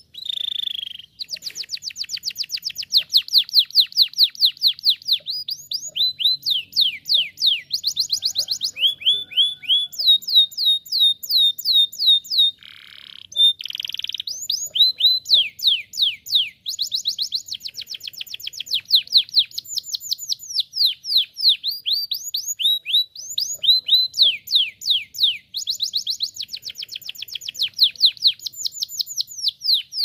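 Domestic canary singing a long song of rapid trills: fast runs of repeated down-slurred notes that change speed and pitch from phrase to phrase, with short breaks between them. A brief harsh, buzzy phrase comes about halfway through.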